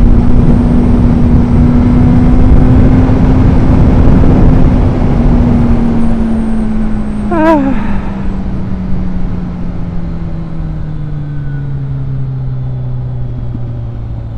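Motorcycle riding at speed, heard from a helmet-mounted camera: heavy wind rush over a steady engine note. About halfway through the engine note starts falling gradually and the wind eases as the bike slows down.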